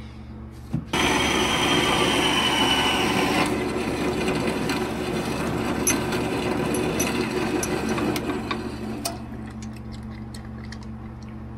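A metal-cutting bandsaw running. It starts suddenly about a second in, is loudest for the first few seconds, then runs on lower. Sharp metal clicks from the steel shafting being handled come through it.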